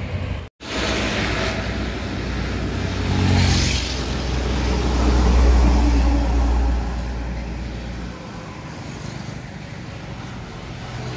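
A heavy box truck passing close by: low diesel rumble and tyre hiss swell to a peak in the middle and then fade into steadier road traffic.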